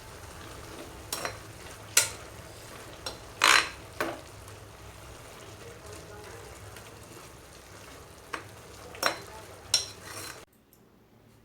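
Food sizzling in a pan while a utensil stirs it and knocks against the pan about six times, loudest about three and a half seconds in. The sizzle cuts off suddenly near the end.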